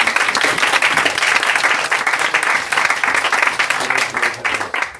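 Audience applauding, many hands clapping at once, thinning toward the end.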